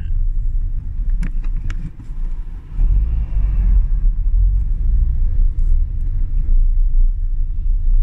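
Steady low rumble of a car's engine and tyres heard from inside the moving car, with a few sharp clicks between one and two seconds in. The noise swells for about a second, from around three seconds in, as an oncoming van passes.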